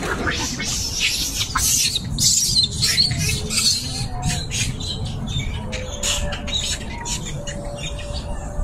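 Animal squeaks and chirps, many short high-pitched calls in quick irregular series, thickest in the first few seconds and thinning later, over a steady low rumble.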